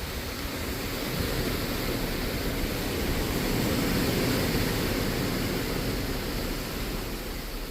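Rushing noise of the sea and wind at sea, swelling to its loudest about four seconds in and then easing off.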